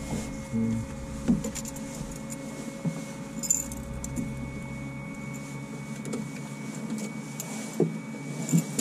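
Light clicks and small rattles from handling switches and gear in a light aircraft's cockpit with the engine stopped, over a faint steady high tone.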